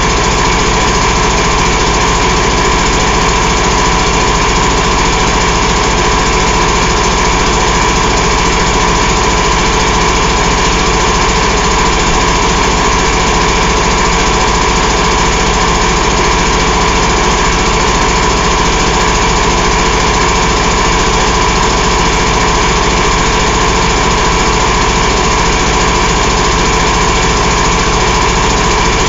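Detroit DD15 14.8-litre inline-six diesel engine running steadily at an even speed on a test stand, with no revving.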